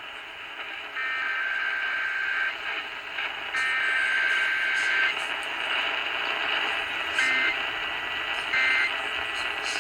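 Emergency Alert System SAME digital header bursts received over a radio with steady hiss: two long, raspy data bursts of paired tones, then two short bursts near the end.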